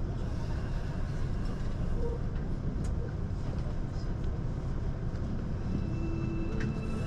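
Steady low rumble of the Limited Express Hokuto train heard from inside the carriage, with a few faint clicks.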